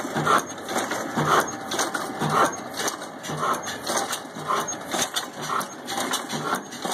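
Old Ruston-type stationary diesel engine running slowly, with a regular beat about once a second and light clicking in between.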